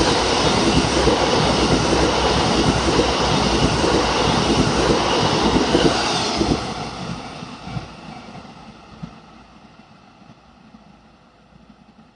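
Train of towed Tokyo Metro 13000-series subway cars passing close by, its wheels running loudly over the rails. About six and a half seconds in, the last car goes by and the rolling noise fades away over several seconds.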